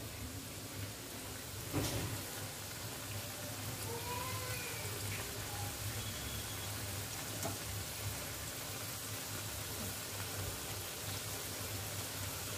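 Alu vadi slices deep-frying in hot oil in a small pan, giving a steady sizzle, with one sharp knock about two seconds in.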